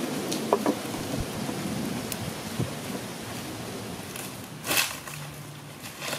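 Wood fire crackling and hissing under a clay pot: a steady noisy crackle with scattered small snaps and one louder pop about three-quarters of the way through.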